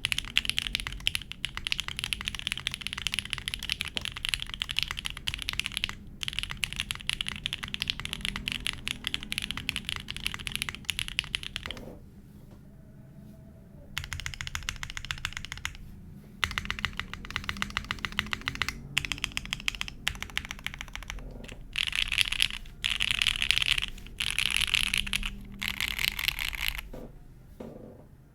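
Mode SixtyFive mechanical keyboard with lubed JWICK Black linear switches on a POM plate in an isolated top mount, with no dampening and GMK keycaps, being typed on quickly: a dense, continuous stream of keystroke clacks. Typing stops briefly about twelve seconds in, and comes in shorter, louder runs near the end.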